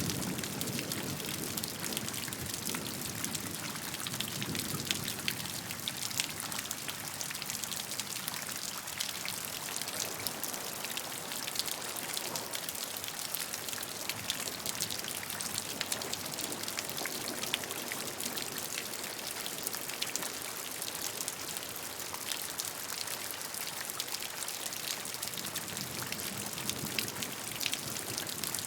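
Steady rain falling, a dense hiss of raindrops with many small individual drop ticks.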